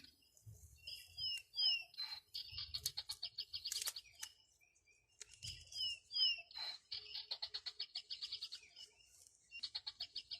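A songbird singing: a few short sliding chirps followed by a fast, even trill of about eight notes a second, the phrase given twice, with a third trill starting near the end.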